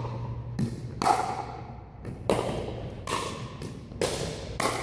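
Pickleball rally: a series of sharp pops as paddles strike the hard plastic ball and it bounces on the hardwood floor, about six hits in under five seconds, each echoing in the large gym.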